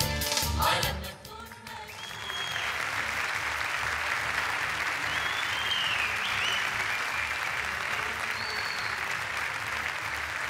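Music with a beat stops about a second in, and a theatre audience breaks into sustained applause, with a few whistles over the clapping.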